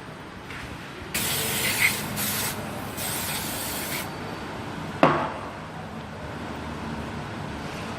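Two hissing spray bursts, each lasting about a second and a half, during cleaning of engine parts. A single sharp knock follows about a second later.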